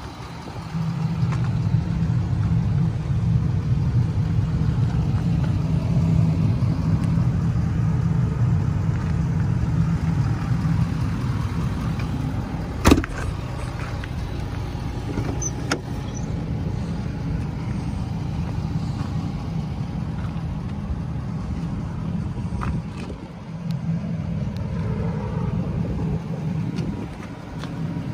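Ford 6.7-litre Power Stroke V8 turbodiesel of a 2014 F-250 idling steadily with a low hum. There are a couple of sharp clicks around the middle.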